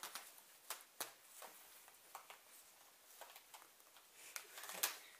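Faint rustles and short clicks of a brick of disposable diapers being handled while a large rubber band is stretched around it.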